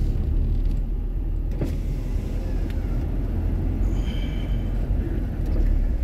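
Car driving slowly, heard from inside the cabin: a steady low rumble of engine and road noise, with a brief click about one and a half seconds in.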